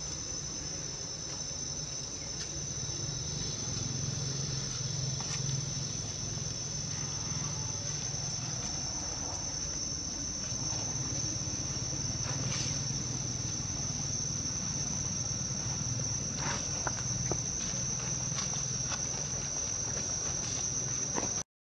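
Steady, unbroken high-pitched drone of insects, with scattered faint ticks and rustles. It cuts out abruptly at the very end.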